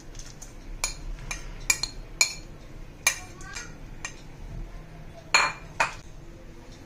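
Metal spoon clinking and scraping against the bowls as chopped coriander is pushed from one bowl into a stainless steel bowl: a string of sharp clinks, the loudest two about five seconds in.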